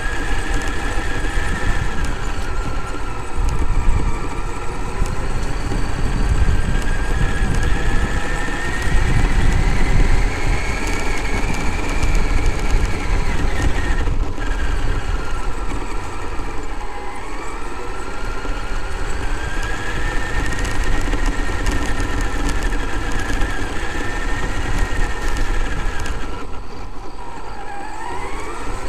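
Traxxas X-Maxx's brushless electric motor and drivetrain whining, the pitch rising and falling several times as the throttle changes, over a steady low rumble as the truck runs across rough grass. Near the end the whine climbs sharply.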